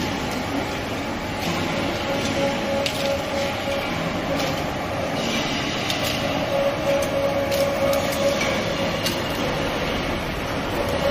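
Four-shaft twin-motor plastic shredder running under load: a steady mechanical hum with a whine that comes and goes, and irregular sharp cracks and snaps as blue plastic barrels are torn into strips.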